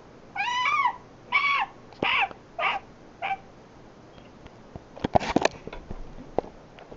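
Pet bird squawking: five short, pitched calls in quick succession, each shorter and fainter than the last. About five seconds in come a cluster of clicks and rustling.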